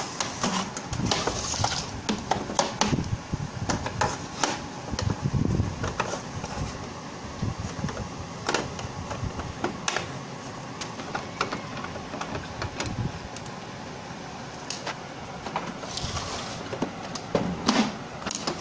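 Irregular plastic clicks, knocks and rattles as an Epson L565 printer's casing is pried and opened and its top unit handled.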